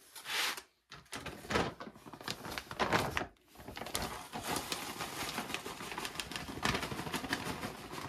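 Plastic bag of earthworm castings crinkling as it is handled and tipped to pour castings onto a tray of moist potting mix. A few separate rustles at first, then steady crackling from about halfway in.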